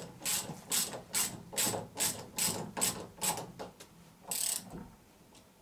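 A ratchet being worked in about ten quick, even strokes, roughly two and a half a second, followed about four and a half seconds in by one longer rasp.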